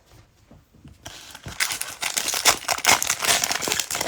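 Cellophane trading-card pack wrapper being torn open and crinkled, a dense crackling that starts about a second in and gets louder.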